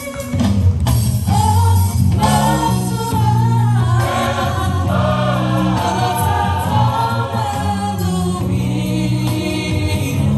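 A choir singing a Christmas carol over a steady bass-line accompaniment.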